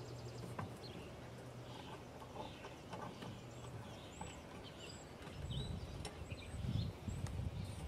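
Quiet outdoor background with a few faint, high bird chirps and some light clicks of handled metal in the first few seconds, while gloved hands work a welding holder; a low rumble comes in past the middle.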